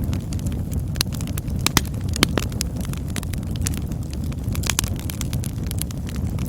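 Wood campfire burning, with a steady low rumble and frequent sharp crackles and pops scattered through it.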